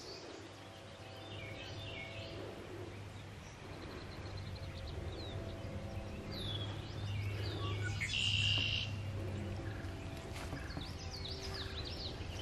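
Wild birds singing and calling: scattered chirps and short trills, with a louder burst of song about eight seconds in, over a steady low hum.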